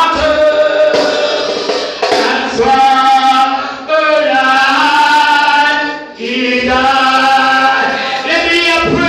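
Group of voices singing together, a church choir or congregation, in long held phrases that break for breath about every two seconds.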